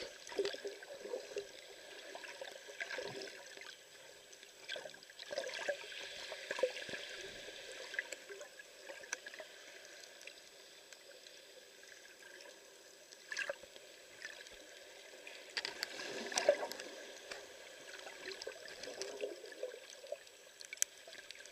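Muffled underwater sound picked up by a submerged camera: faint gurgling water movement with scattered small clicks and knocks, swelling a little louder about two-thirds of the way through.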